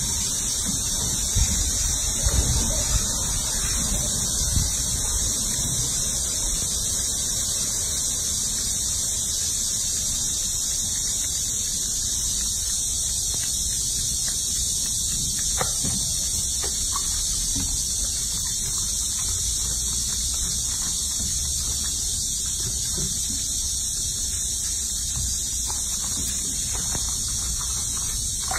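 A steady high-pitched hiss with no change in level, over faint sloshing of water and wet rubbing as a baby monkey is lathered in a sink of soapy water.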